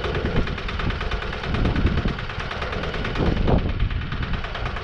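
Wood-Mizer LT15 portable band sawmill running steadily with its engine going, a dense, even, rapidly pulsing mechanical noise.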